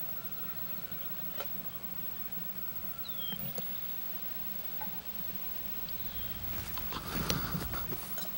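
Rustling of dry brush and clothing with scattered small clicks as a rifleman crouches and handles his rifle, growing louder near the end. Two short falling bird chirps come in between, over a steady low hum.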